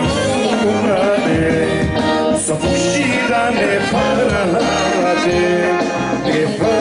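Macedonian folk band playing a traditional song: a wavering, ornamented melody over a steady pulsing bass beat.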